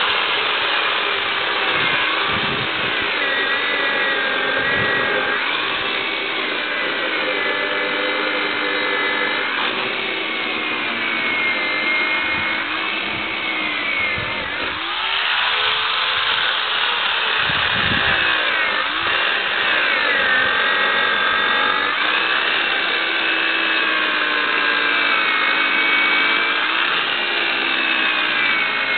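Poulan 3.5 horsepower electric chainsaw running continuously as it cuts wet birch. Its motor whine sags in pitch each time the chain bites into the wood and climbs back when the load eases, several times over.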